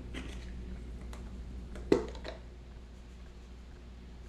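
Light kitchen handling sounds as onion powder goes into a bowl: a few soft clicks and one sharper tap about two seconds in, over a low steady hum.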